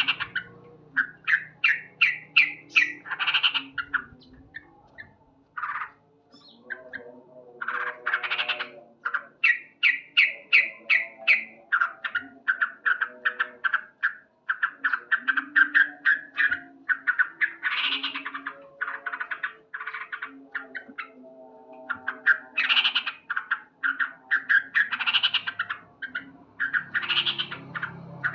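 Male yellow-vented bulbul (trucukan) calling loudly: phrase after phrase of rapid, clipped 'cuk cuk' chattering notes, with short pauses between the phrases.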